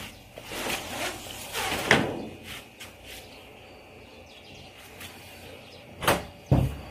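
A sliding screen door rolling and scraping along its metal track, then a few light clicks and two sharp knocks near the end.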